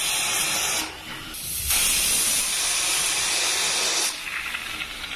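Aluminium pressure cooker venting steam through its weight valve in a loud hiss, with frothing water sputtering out around the weight. The hiss eases briefly about a second in, surges again for a little over two seconds, then drops to a softer hiss.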